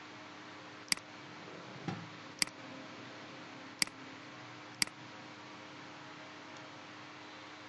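Computer mouse button clicking four times, each a sharp click followed at once by a softer release click, spaced about one to one and a half seconds apart, over a faint steady hum. There is a soft low bump about two seconds in.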